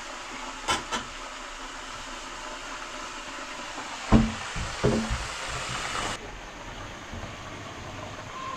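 Steady sizzling hiss of fish frying in hot oil in a pot, with a few knocks of kitchenware being handled, the loudest about four seconds in.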